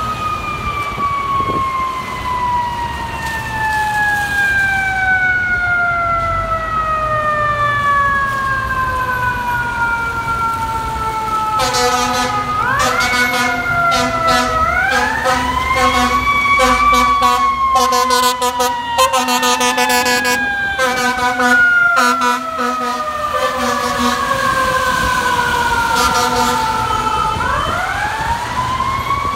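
Fire truck's mechanical Q siren winding slowly down in a long falling wail, then spun back up with quick rising whoops about halfway through and again near the end, a second siren wail overlapping in the middle. A steady low horn tone sounds through the middle stretch.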